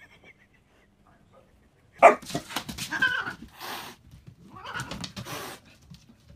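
A dog barking in two short bouts, the first starting sharply about two seconds in.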